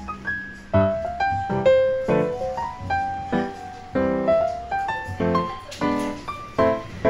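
Background piano music: a light melody of struck, fading notes over chords, at a gentle, even pace.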